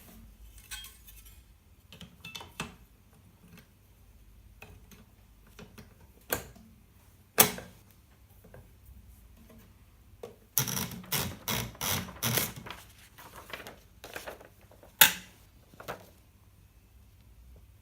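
Hermes 3000 portable typewriter typing: a few scattered keystrokes, then a quick run of about nine keys striking, then a single loud strike near the end.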